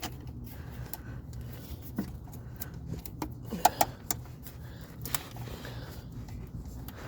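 Hand tools working on bolts: scattered metal clicks and clinks of a wrench and socket, with two sharp ringing clinks close together a little over halfway through, over a low steady hum.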